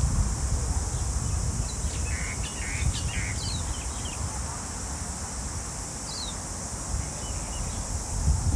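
Steady high-pitched insect buzz, with wind rumbling on the microphone and a few short bird chirps about two to three seconds in and again around six seconds.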